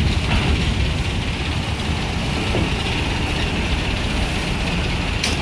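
Heavy diesel bus engines running at low speed, a steady low rumble, with a short hiss near the end.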